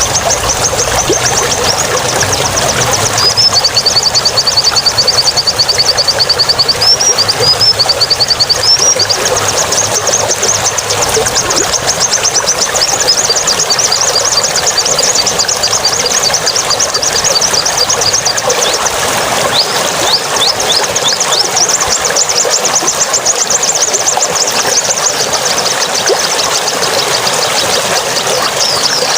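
A songbird singing long, rapid, high chattering trills made of fast runs of short sweeping notes, over a steady background hiss.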